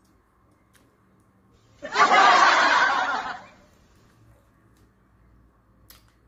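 A short burst of laughter about two seconds in, lasting under two seconds, with a wavering pitch.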